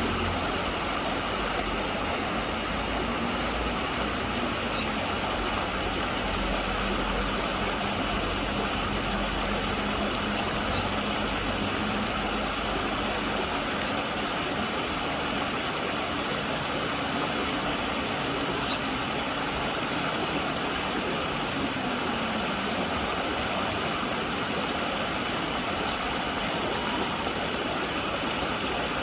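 Steady rush of flowing stream water mixed with the hum of road traffic, a vehicle engine's low drone rising and falling under the water noise.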